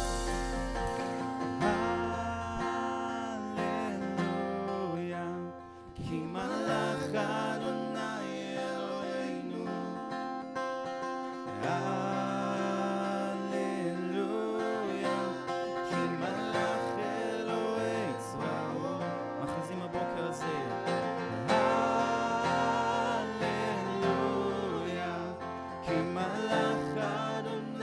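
Live worship band music led by a strummed acoustic guitar, over bass guitar and an electronic drum kit, with a brief drop in level about six seconds in.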